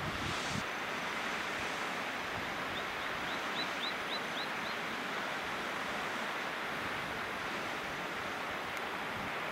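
Flood Geyser erupting: a steady rush of splashing, boiling water as the pool throws up repeated bursts. About three seconds in, a short run of faint, quick high chirps sounds over it.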